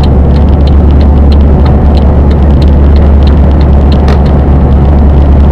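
Vehicle engine and road noise heard from inside the cabin while driving on a motorway: a loud, steady low drone under road hiss, with faint ticking about twice a second.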